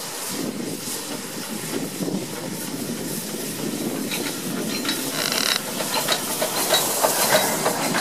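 Queensland Railways C17-class steam locomotive 971 running light at low speed, with steam hissing and its wheels and running gear clattering on the track. A brief high squeal comes about halfway through, and the sound grows louder as the engine draws close near the end.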